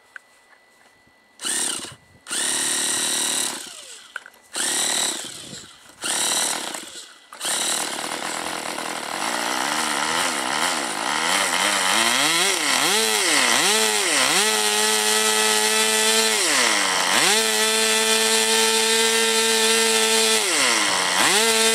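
Small model-airplane engine being cranked with a hand-held electric starter in four or five short bursts, catching about seven seconds in. It then runs and is throttled up and down several times, its pitch rising and falling, and is held at high revs for a few seconds at a time.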